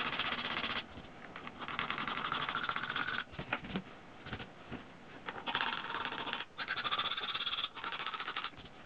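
A bare utility-knife blade is scraped in long strokes along an unpainted, moulded-in-colour plastic Honda Africa Twin handguard, shaving out the scuffs and dents left by a drop. There are about five scraping strokes of roughly a second each, with a short pause partway through.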